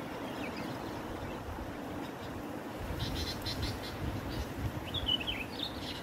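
Sooty-headed bulbuls calling: a few faint chirps, then a quick run of sharp notes about three seconds in and a short falling warbled phrase near the end, over a steady low rumble.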